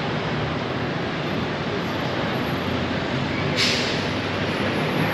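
Steady noise of busy street traffic, with a short sharp hiss about three and a half seconds in.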